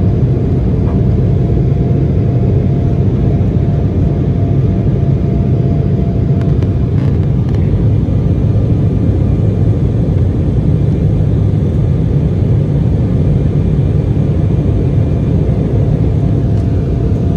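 Cabin noise of an Embraer 175 jet during takeoff: the steady low rumble of its General Electric CF34 turbofan engines and airflow heard from a seat by the wing, with a faint steady whine on top.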